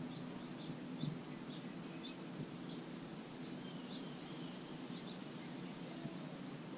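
Small birds chirping in short, scattered high calls over a steady low background noise.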